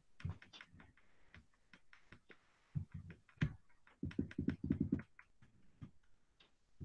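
Faint, irregular clicking and ticking of a computer mouse scroll wheel as a document is scrolled, with a quicker run of clicks about four seconds in.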